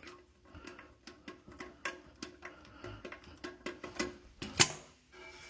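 Irregular clicks and knocks of a toilet being set in place and its hardware handled, with one louder knock near the end.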